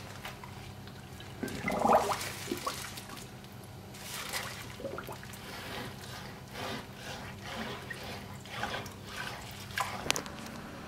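A whole redfish handled and rinsed in a stainless steel sink, with wet splashing about two seconds in. This is followed by a run of quick, repeated scraping strokes as a blade is drawn along the wet fish, and a couple of sharp clicks near the end.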